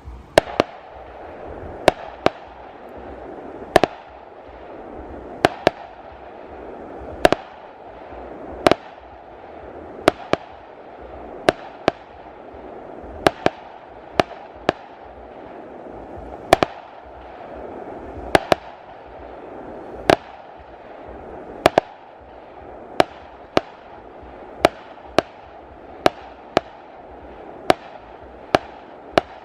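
Fireworks display: sharp bangs of fireworks bursting at irregular intervals, about one a second, over a continuous crackling hiss.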